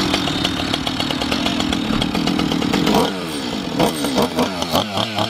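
Chainsaw engine running steadily for about three seconds, then revved up and down several times in quick succession.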